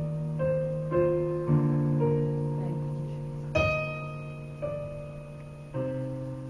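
Piano playing slow held chords, with a new chord or single note struck every second or so as the sound slowly fades; the strongest strike comes about three and a half seconds in.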